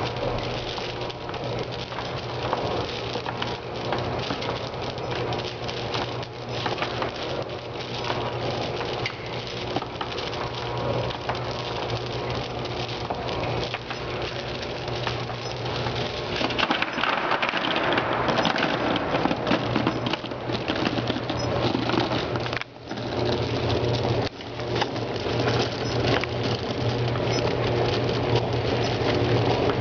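Industrial gum feeder running with a steady low mechanical hum, while pink gum pellets patter and rattle continuously as they pour from its discharge spout into a box. The sound breaks off for a moment about three-quarters of the way through.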